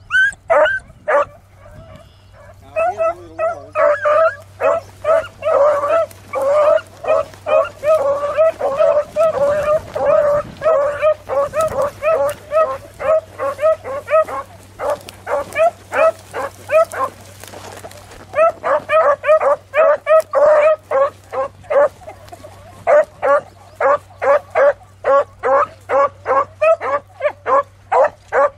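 Beagles baying on a rabbit's scent track: short, pitched bays repeated about two or three times a second, overlapping in the first half and broken by a few brief pauses.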